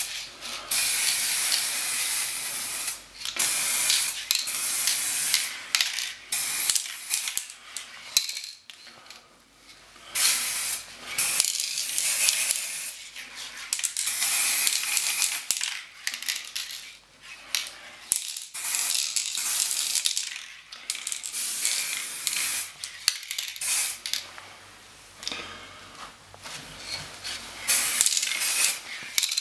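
Spraying hiss in repeated bursts, starting and stopping over and over, each lasting from under a second to a few seconds.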